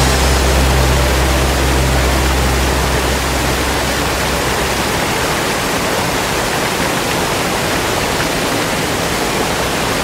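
Waterfall rushing steadily, with a low hum underneath that fades out about four seconds in.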